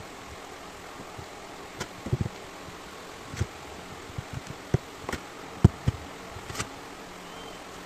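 Irregular light knocks and clicks as the twin-barrel carburetor of a 115 hp Yamaha two-stroke outboard is handled, turned over and set down on a workbench, about a dozen taps over a few seconds, the loudest a little past the middle, over a steady background hiss.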